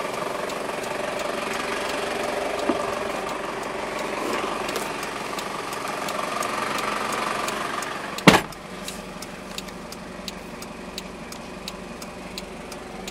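1997 Toyota Hiace Regius diesel engine idling steadily, heard from inside the van. About eight seconds in, a door slams shut; after that the engine is quieter and a faint, regular ticking can be heard.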